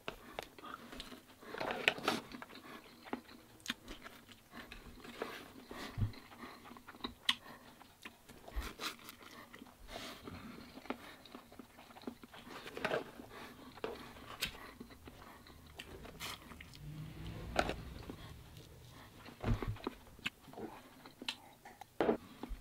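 A person chewing mouthfuls of instant noodles close to the microphone. Irregular small mouth smacks and clicks come through, with chopsticks working in the plastic tub.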